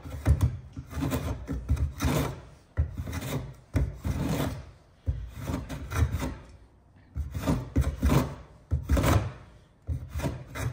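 Record 020C compass plane cutting along the concave edge of a wooden board in a run of short strokes, with brief pauses between groups of strokes. The iron is catching and digging in toward the middle of the curve.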